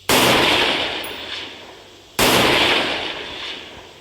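Rifle gunfire: two sudden loud onsets about two seconds apart, each trailing off slowly.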